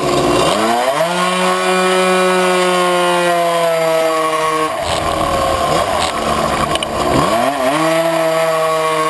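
Tuned 70cc two-stroke engine of a Puch Maxi racing moped, revving up sharply within the first second and holding high revs. About halfway through the revs drop off the throttle, then climb again near the end.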